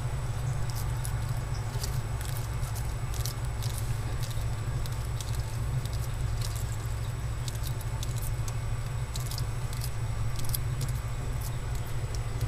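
Bearded dragon chewing lettuce: irregular small crisp clicks of the leaf crunching between its jaws, over a steady low hum.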